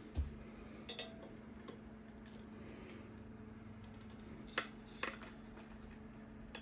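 Quiet handling of metal tools: a dull thump just after the start, then a few light, sharp metal clicks and taps, with a steady low hum underneath.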